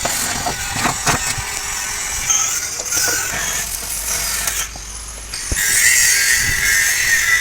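Truck-repair workshop noise: a busy mechanical clatter with several sharp metal knocks, one about a second in and another near five and a half seconds in.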